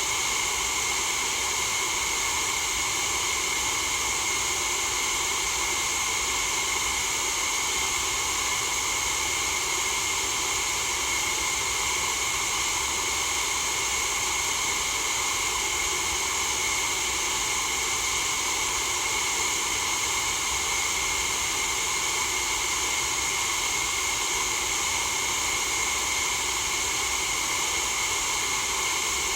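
Steady, unchanging white-noise hiss, brightest in the upper treble, with no breaks or changes.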